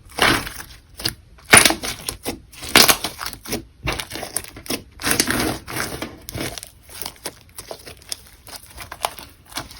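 Clear slime with eyeshadow and lipstick mixed in, being squished and folded: irregular wet crackling and popping, with the loudest pops about one and a half and three seconds in.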